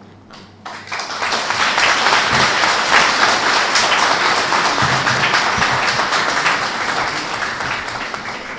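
Audience applauding: many people clapping, rising about a second in, holding loud, then dying away near the end.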